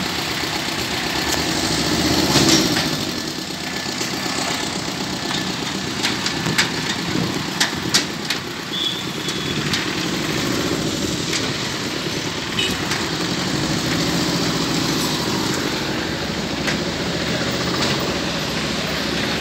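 Goods vehicle's engine running with road noise while it is driven, and a few sharp clicks or rattles.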